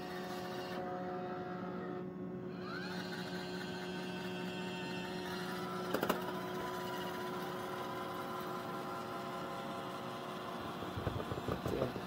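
Roomba i7 robot vacuum's motors running with a steady hum of several tones as it turns and backs toward its Clean Base while trying to dock. A whine rises about three seconds in, and a single click comes near the middle.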